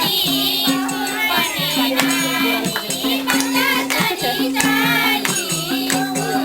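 Music with voices singing and rattling percussion over a low two-note figure that alternates steadily.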